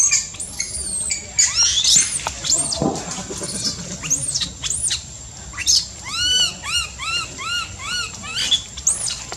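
Young macaque screaming in distress: a run of high-pitched squeals, each rising and falling. Near the end comes a quick, regular string of about two or three squeals a second.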